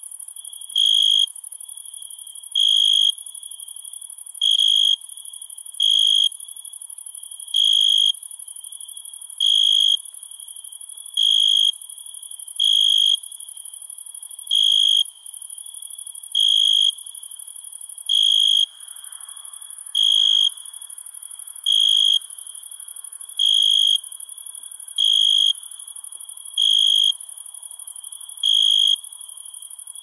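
Crickets chirping at night: a loud chirp about every two seconds, each about half a second long, with a faint continuous trill between chirps, over a steady very high-pitched insect drone.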